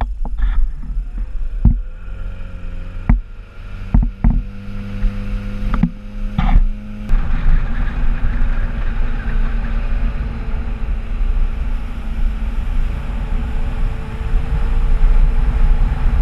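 Speedboat engine under throttle towing a waterskier up, with a few sharp knocks in the first seconds. About seven seconds in, the sound turns into a steady wash of wind and water noise as the boat runs at speed, with the engine humming underneath and growing louder near the end.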